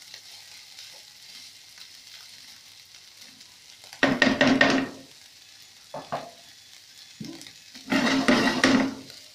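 Chicken and green capsicum sizzling faintly in a non-stick frying pan, stirred with a slotted spatula. Two loud bouts of scraping and tossing come about four and eight seconds in, with two short scrapes between them.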